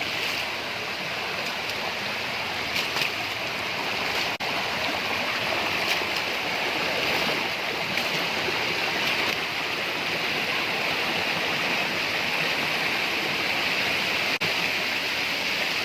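Steady rush of falling water from a waterfall: a constant hiss that grows slightly louder, briefly dropping out twice.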